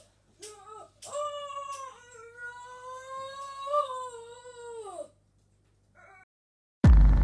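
A long, wavering wailing cry lasting about four seconds, after a couple of short cries. Near the end comes a sudden loud boom that dies away slowly.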